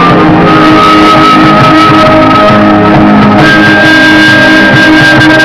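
Loud music with guitar, its high held note stepping up about three and a half seconds in.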